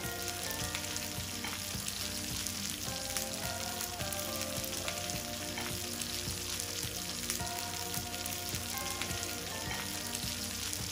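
A4 Japanese wagyu steaks, a ribeye and a sirloin, sizzling steadily as they are laid on a hot ridged electric grill pan to sear.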